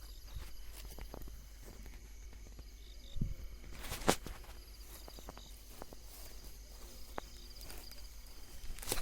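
Footsteps crunching on dry field ground, with faint steady insect chirping in the background and a sharp crack about four seconds in.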